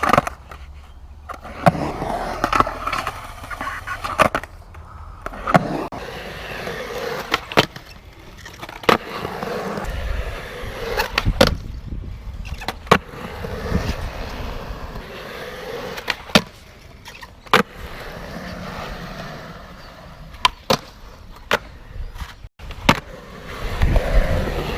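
Skateboard rolling on concrete, with a dozen or more sharp clacks of the board's tail and wheels striking the ground on pops and landings. A low rumble swells in the middle and near the end.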